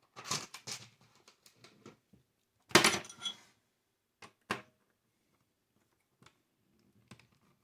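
Tools and parts being handled on a workbench: scattered sharp clicks and light clatter, with one louder knock about three seconds in.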